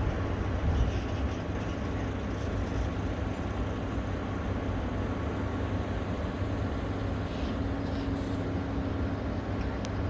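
Caterpillar 312B excavator's diesel engine running steadily, with a constant low hum.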